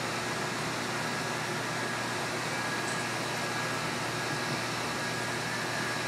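Steady background noise: an even hiss with a faint, high, steady tone running through it and no separate events.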